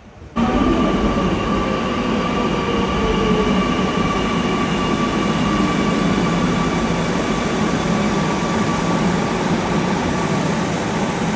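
Kochi Metro train pulling into the platform: a steady rumble and rush of the cars running past close by, with a motor whine that falls slowly in pitch as the train slows. The sound starts abruptly just after the beginning, and a thin high tone slides upward near the end.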